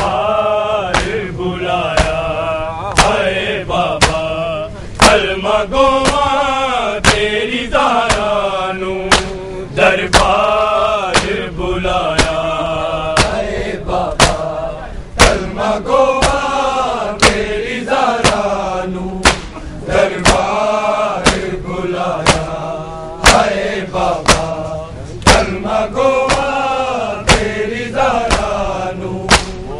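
Male voices reciting a Shia noha, a mournful chanted lament, over a crowd of men beating their chests in unison (matam). The hand-on-chest slaps are sharp and fall in an even beat, about once a second.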